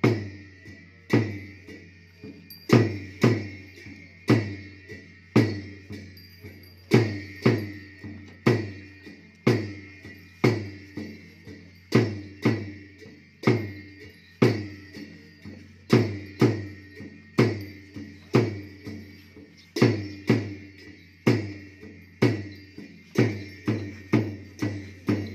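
Ache Lhamo dance accompaniment: a large drum and cymbals struck together in a steady beat, each stroke booming low with a ringing cymbal crash, the strokes coming faster near the end.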